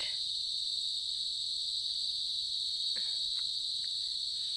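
Steady, high-pitched chirring of an insect chorus, holding level without a break, with a few faint ticks in the second half.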